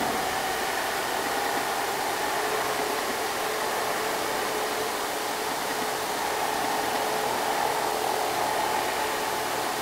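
Heavily loaded light truck's engine pulling steadily through a bend, heard from a distance as a steady drone with a faint whine over a hiss.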